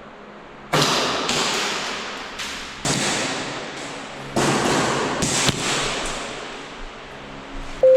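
Airsoft guns firing single snap shots, with BBs cracking against hard cover: about seven sharp pops at irregular intervals, each trailing off in a long echo.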